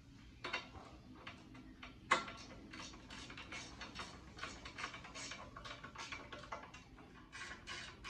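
Ratchet wrench clicking in quick repeated strokes, about three or four a second, as a brake caliper mounting bolt is run in. There is a sharper metal clack about two seconds in.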